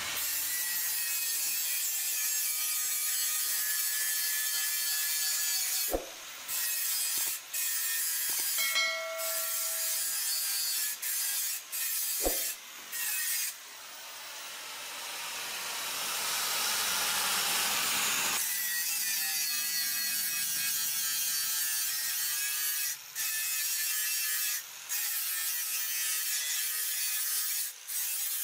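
Electric angle grinder grinding the edge of a steel sickle blade: a steady high hiss with a faint motor whine, broken by several brief gaps.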